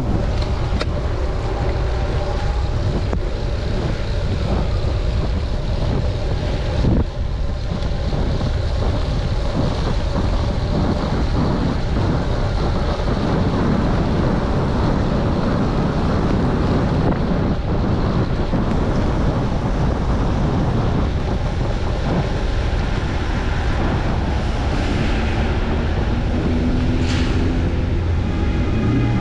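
Wind rushing over the microphone of a camera on a moving bicycle: a steady, loud low rumble with hiss, broken by a single sharp knock about seven seconds in.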